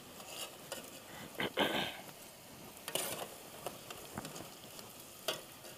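Chips deep-frying in a pot of hot oil, a steady sizzle, with a metal slotted spoon clicking and scraping against the pot as the fries are scooped out.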